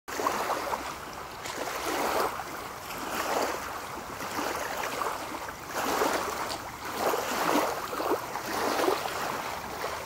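Water lapping and splashing around a spruce bark canoe as it is paddled, the sound swelling and easing every second or two.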